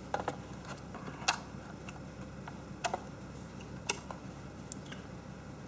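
Small hard clicks and taps of a drive and its bracket being worked back into a laptop's drive bay, with a few sharper clicks about a second apart among fainter ones.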